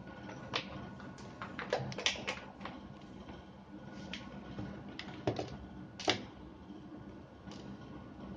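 Scattered small plastic clicks and knocks as a power drill's trigger switch assembly and its cord are handled and laid down on a wooden workbench, over a faint steady hum.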